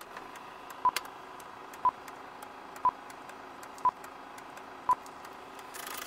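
Film-leader countdown sound effect: a short high beep once a second, in time with the numbers, over a steady hiss sprinkled with faint clicks and pops. A whoosh swells up near the end.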